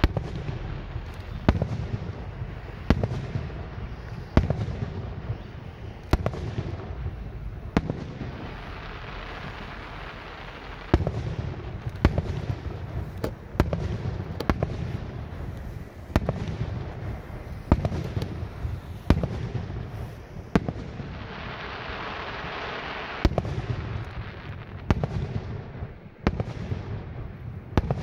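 Aerial firework shells bursting overhead one after another, sharp bangs every second or two over a low rumble. Around three-quarters of the way through there are a few seconds of hissing between the bangs.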